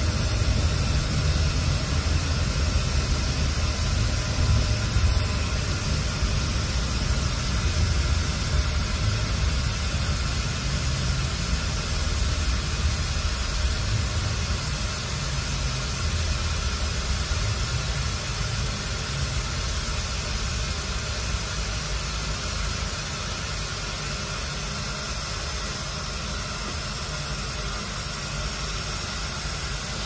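Scania OmniExpress coach's air-conditioning blowing with a loud, steady hiss, heard inside the passenger cabin over a low engine and road rumble. The rumble fades in the second half as the coach slows.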